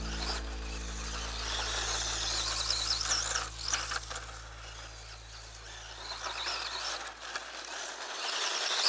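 Electric motor and gears of a Kyosho Tomahawk 1/10 2WD RC off-road buggy whining. The pitch rises and falls as the car accelerates and brakes around the track. A low held background drone fades out near the end.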